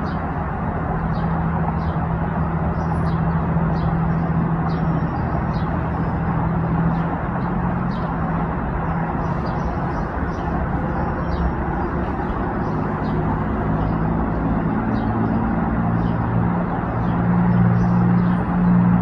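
A steady engine drone with a low hum that shifts in pitch and gets louder near the end. Faint high chirps from small birds repeat about once a second.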